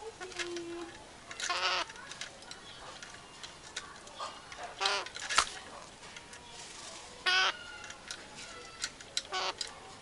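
Green betet parakeet squawking in short harsh calls, three loud ones about one and a half, five and seven seconds in, with fainter calls between: agitated calls at a hand reaching toward it. A sharp click sounds about halfway through.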